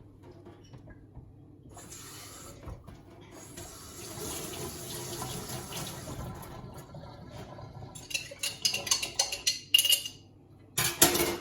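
Kitchen tap running water into an emptied glass sauce jar for several seconds to rinse out the last of the sauce, followed by a quick run of clinks and knocks as the jar is handled.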